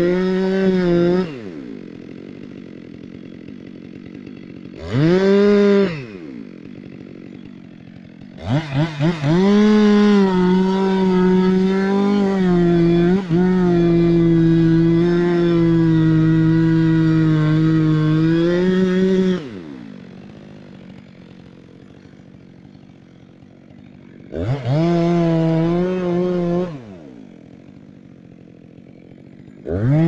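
Two-stroke Stihl chainsaw cutting into a standing tree trunk, revving to full throttle in bursts and dropping back to idle between them. There is a short burst at the start, a brief rev about five seconds in, a long cut of about eleven seconds from about eight seconds in, another burst a little before the end, and the saw revs up again right at the end.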